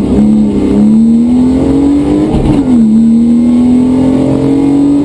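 Rally car engine heard from inside the cabin, accelerating hard under load: the note climbs steadily, drops sharply about halfway through at an upshift, then climbs again in the next gear.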